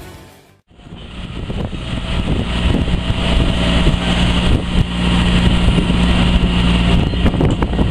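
Music cuts out within the first second, then farm tractor diesel engines fade in and run steadily.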